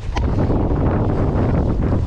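Wind buffeting the microphone in open water, a loud steady low rumble, with one brief click about a quarter of a second in.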